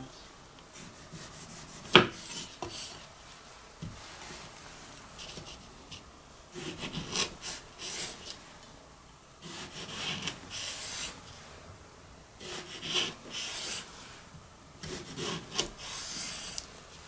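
Kitchen knife cutting a tomato on a wooden cutting board: one sharp knock about two seconds in, then several groups of short slicing strokes.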